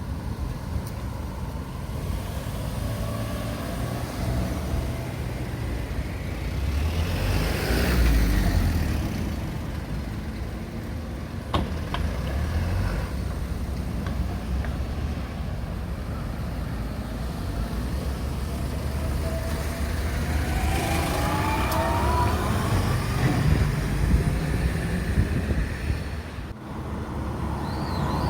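Road traffic: cars and trucks driving past, louder as vehicles go by about eight seconds in and again from about twenty seconds, when an engine note rises as a vehicle pulls away. A single sharp click sounds near the middle.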